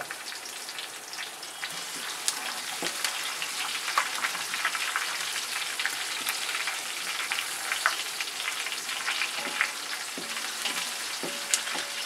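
Chopped garlic, green chillies and curry leaves sizzling in hot oil in a metal pot, with a steady crackle of small pops, stirred with a wooden spatula.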